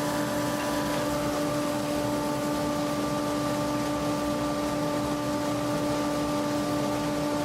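Bandsaw with a 1/2-inch (12 mm) blade running steadily: an even mechanical hum with a hiss, unchanged throughout.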